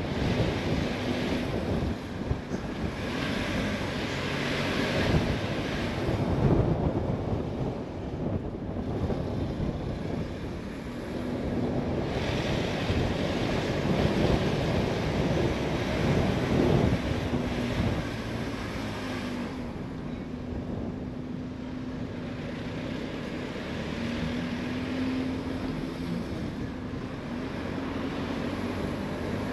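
A car driving on the road: engine running under steady tyre and wind noise, its note shifting a little in pitch as the speed changes.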